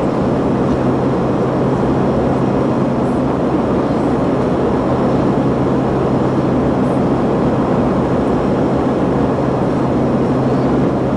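Steady passenger-aircraft cabin noise: a constant rush with a low hum underneath.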